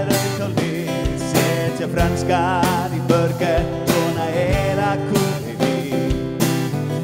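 Music: a sung song in Icelandic with guitar accompaniment and a steady drum beat.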